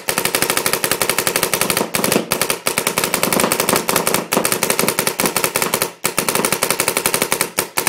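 Paintball marker firing reballs in rapid automatic strings, many shots a second, with a few brief pauses between strings.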